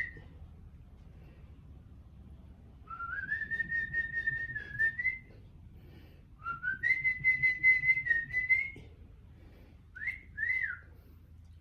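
Whistling: two long notes, each sliding up and then held with a wavering quiver, followed by two short rise-and-fall chirps near the end.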